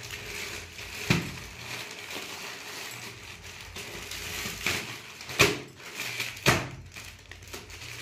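Plastic parcel packaging rustling and crinkling as it is opened by hand, with three sharp crackles: one about a second in and two louder ones near five and a half and six and a half seconds in.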